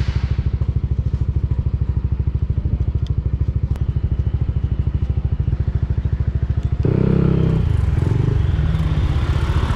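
Yamaha scooter engine idling with an even, rapid pulse. About seven seconds in, it grows louder and fuller.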